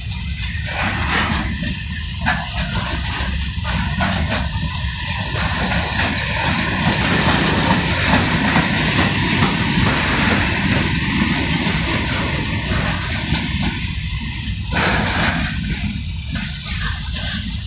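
Container flat wagons of a freight train rolling past close by: a steady low rumble of steel wheels on the rails, with many short clicks and knocks from the wheels and couplings.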